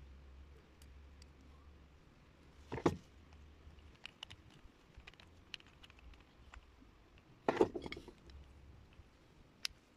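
Small clicks and taps of a Honda GX160 carburetor and its small metal and plastic parts being handled and fitted together. Two louder short clatters come about three seconds in and again near eight seconds.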